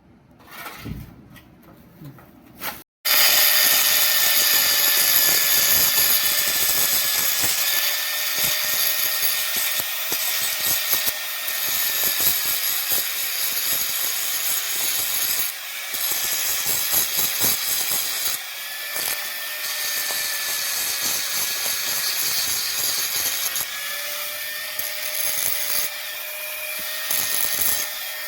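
An electric power tool running steadily under load: a motor whine with a harsh, hissing grinding noise over it, starting abruptly about three seconds in after a few faint knocks.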